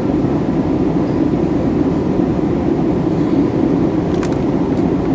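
Steady drone of an airliner cabin in flight: engine and airflow noise, even and unbroken, with a couple of faint ticks about four seconds in.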